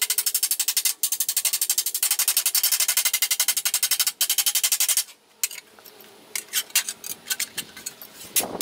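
Hand hammer striking a quarter-inch steel plate on an anvil in a fast, even rhythm, putting a hammered texture on it, with brief breaks about one and four seconds in. About five seconds in the hammering stops, leaving scattered knocks of the plate being handled, with a louder knock just before the end.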